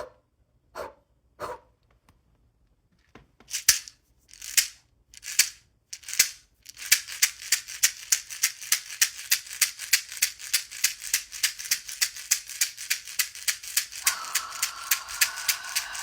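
A hand rattle shaken: a few separate swishes, then steady fast shaking at about five or six strokes a second. Near the end a breathy, slightly rising tone joins it.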